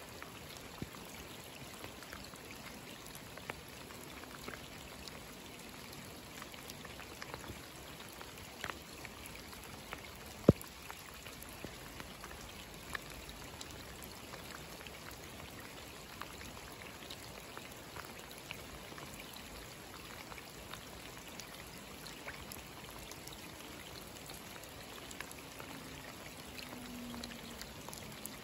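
Rain falling onto a flooded road and its standing water: a steady soft hiss dotted with individual drop splashes. One sharp tap stands out about ten seconds in.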